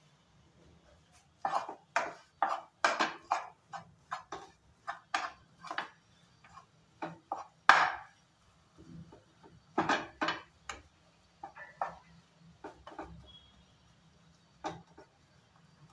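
Wooden spatula scraping and knocking against a non-stick frying pan while mashing and mixing a spiced potato filling, in quick irregular strokes that thin out to a few scattered ones after about 11 seconds.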